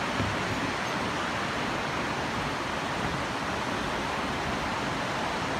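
River rushing over rocky shoals and rapids: a steady, even rush of water.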